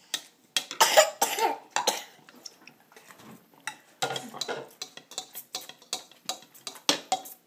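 Coughing, several harsh bursts in the first two seconds, followed by scattered light clinks and taps of a metal fork against a bowl.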